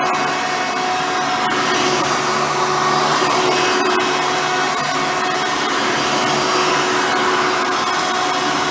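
Hoover Soft & Light Supreme upright vacuum with a 7-amp motor running steadily while vacuuming, a continuous rushing noise with a steady whine in it and slight swells in loudness.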